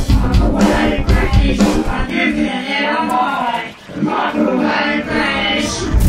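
Music: a band with drums and bass plays for about two seconds, then the drums stop and singing with a wavering pitch carries on.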